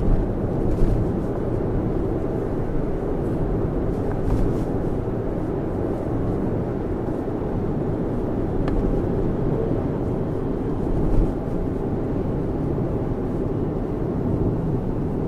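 Steady road and tyre noise heard inside the cabin of a Lexus RX 450h cruising on a multi-lane road, with one brief thump about eleven seconds in.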